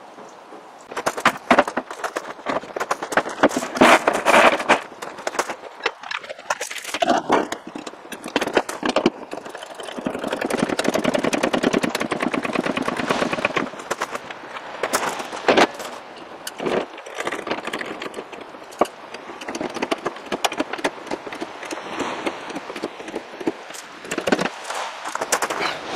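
Trolley jacks being set up and pumped to lift the rear of the car: a run of metal clanks and clicks.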